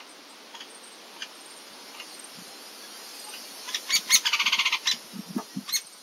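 Hairy woodpeckers calling: faint, scattered sharp calls, then about four seconds in a loud burst of rapid calls running together into a rattle for about a second. A few dull knocks near the end.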